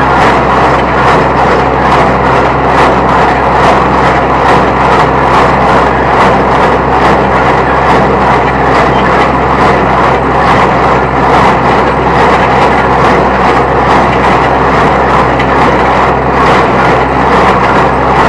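New Holland T1510 tractor running a New Holland 269 Hayliner square baler off the PTO: a steady, loud machine noise with a regular, rapid beat from the baler.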